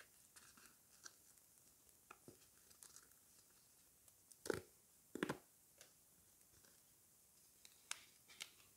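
A sticker packet being torn open by hand: faint crinkling, then two louder rips about four and a half and five seconds in, followed by a few light clicks and rustles as the stickers come out.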